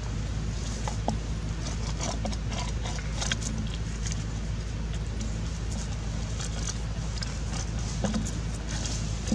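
Empty plastic water bottle crinkling and knocking as a baby monkey handles and mouths it, with light rustling of dry leaves, over a steady low hum.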